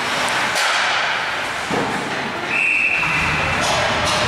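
Ice hockey rink during play: knocks and thuds of sticks, puck and boards over the arena's echoing noise, then a referee's whistle blown once and held for about a second, about two and a half seconds in, stopping play.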